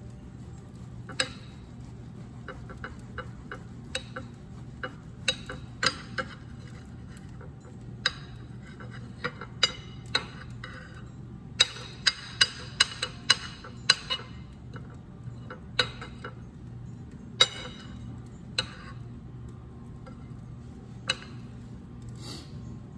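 Metal table knife clicking and tapping against a ceramic plate while cutting through an omelette: scattered sharp clinks, with a quick run of about eight around the middle. A steady low hum runs underneath.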